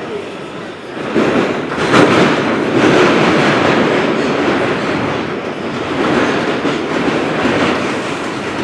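Inside an R142 New York subway car running through the tunnel: a steady rumble and rattle of wheels on rail, growing louder about a second in, with a sharp clack about two seconds in.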